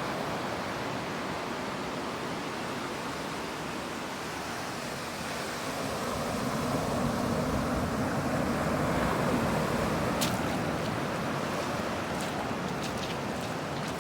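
Ocean waves washing in over rocky tide pools: a steady rush of surf that swells around the middle and eases off again, with a few light clicks near the end.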